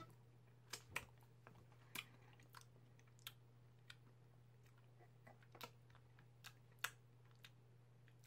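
Faint, irregular mouth clicks and smacks of eating soft ice cream from a push-up tube, about a dozen scattered through, over a low steady hum.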